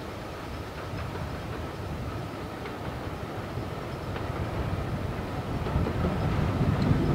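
Hunslet Austerity 0-6-0 saddle tank steam locomotive No. 198 hauling coaches as it approaches, growing steadily louder. A deep rumble builds strongly near the end.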